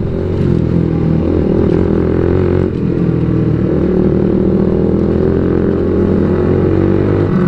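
Motorcycle engine and exhaust running under way at a steady road speed, heard from on board the bike; the note dips briefly about a third of the way in.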